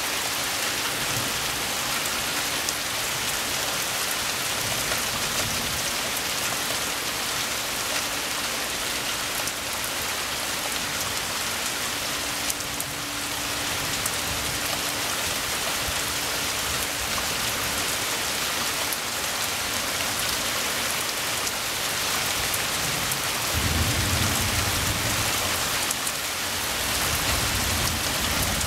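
Steady rain falling during a thunderstorm. A low rumble of thunder comes in near the end and lasts a few seconds.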